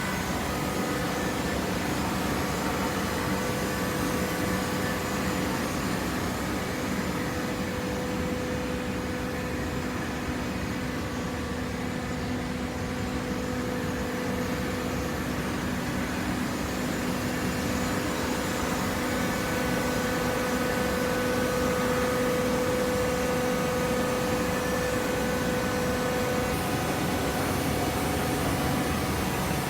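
Hydraulic baling press running: a steady machine hum with a constant low tone and a higher tone above it.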